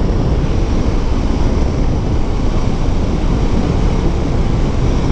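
Steady rush of wind on the microphone of a moving motorcycle, a Honda NX4 Falcon, with its single-cylinder engine and tyre noise blended underneath.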